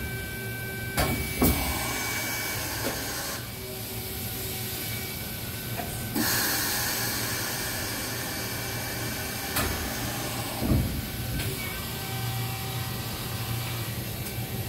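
OKK HM6300S horizontal machining center's pallet changer cycling over a steady machine hum: a few sharp clunks as the pallet moves and seats, and two long stretches of hiss, the first a second or two in and the second around the middle.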